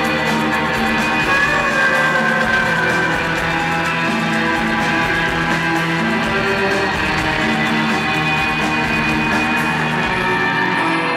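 Rock band playing live: two electric guitars over drums, with steady sustained guitar notes.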